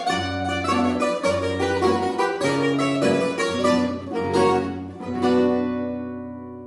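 Two Greek bouzoukis and an acoustic guitar play the closing bars of a tune in quick plucked notes. About five seconds in they strike a final chord that rings on and fades away.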